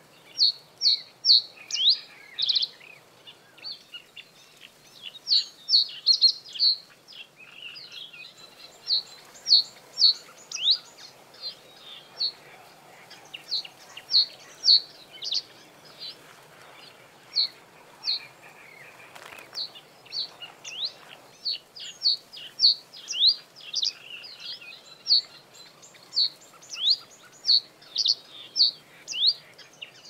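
Male common reed bunting singing: short phrases of a few quick, high chirps, a new phrase every two to three seconds.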